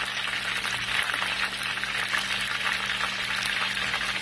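Whole lapu-lapu (grouper) shallow-frying in hot oil in a wok over medium heat: a steady sizzle with fine crackling as the oil bubbles around the fish, which is fried through and golden. A faint steady low hum lies under it.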